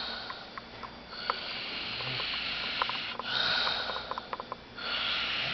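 A sleeping old man breathing noisily, with long hissing breaths, a brief low snore about two seconds in, and small clicks between breaths.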